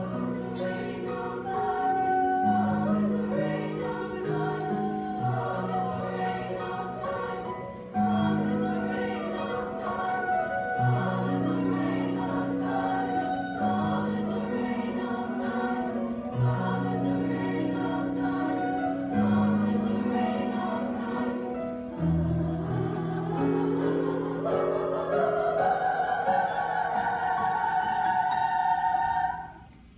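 Women's choir singing in harmony with piano accompaniment, the piano sounding low held notes beneath the voices. About two-thirds through, the voices sweep upward to a long, loud high chord that stops together just before the end, closing the piece.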